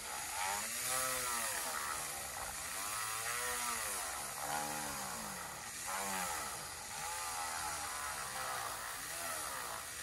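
Dremel rotary tool with a sanding drum grinding out a hole to enlarge it. The motor's whine rises and falls in pitch over and over, about once a second, as it works.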